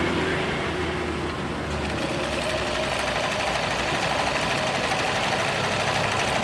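Janome NS 385 flatbed sewing machine, driven by its external motor, running steadily as it stitches a pattern stitch; its sound grows brighter about two seconds in.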